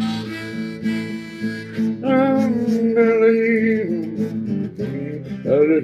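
Acoustic guitar strummed with a harmonica playing the melody over it, an instrumental break between sung lines of a worship song. The harmonica holds long notes, the loudest about two seconds in, with a wavering pitch in the middle.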